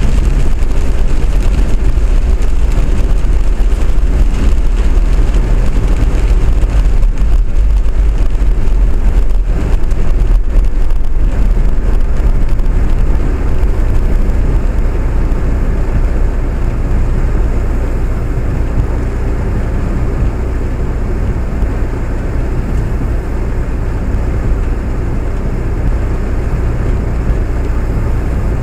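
A vehicle in motion makes a steady low rumble of running noise. It gets slightly quieter around the middle and then holds steady.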